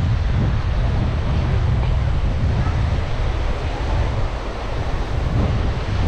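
Wind buffeting the microphone with a heavy, steady rumble, over the wash of small waves breaking on a sandy shore.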